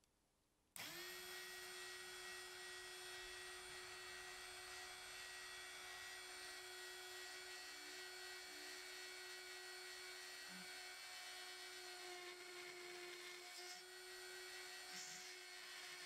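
Rotary tool in a drill-press stand starting up about a second in and then running at a steady high-pitched whine while its bit drills into a rusty steel lighter part.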